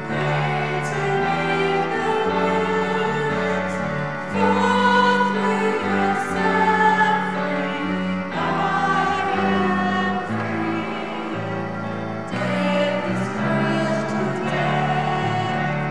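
Choral singing: voices holding slow, sustained chords that change every second or two.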